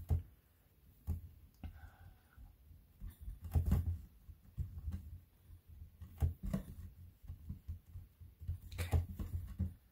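Soft, irregular taps and thumps as hands press and turn a block of stacked polymer clay on a cutting mat, with light rubbing of fingers on the clay.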